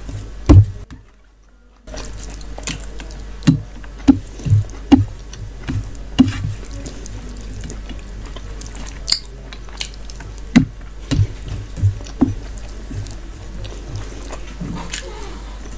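Wet, squelchy clicks of fingers mixing rice and curry on a steel plate, mixed with close-up chewing and mouth sounds in an irregular rhythm. A brief dropout comes about a second in.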